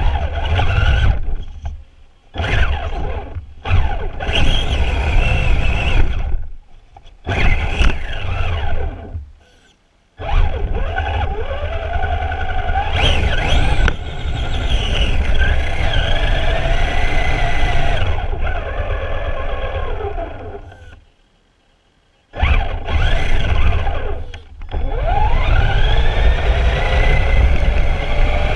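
Electric drive of a Traxxas Summit RC truck whining in repeated throttle bursts, its pitch rising and falling with speed, over a low rumble from running across snow. It stops briefly several times and goes near silent for over a second about three quarters of the way through.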